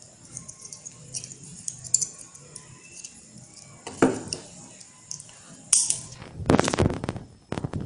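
Small metallic clicks and clinks of steel pliers and a metal bottle cap being handled and bent by hand, with a knock about four seconds in and a cluster of louder knocks and clatter near the end.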